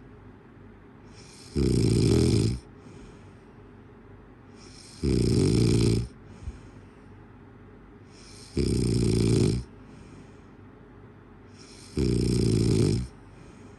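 Snoring: four loud, rasping snores at an even pace, about one every three and a half seconds and each about a second long, each followed by a fainter breath out.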